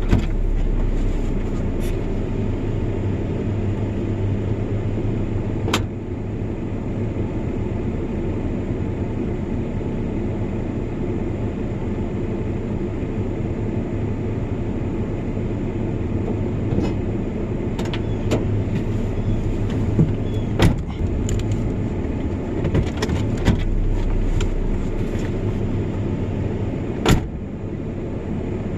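Truck driving: steady engine and road noise, with a few sharp knocks now and then.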